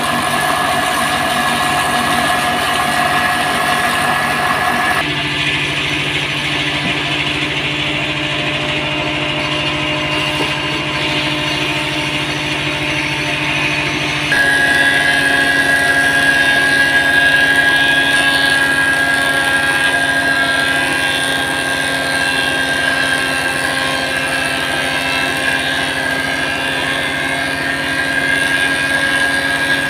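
Electric, belt-driven wood thickness planer running steadily with a high whine, planing red meranti boards as they are fed through. The tone shifts abruptly about five seconds in and again about fourteen seconds in, when it gets a little louder.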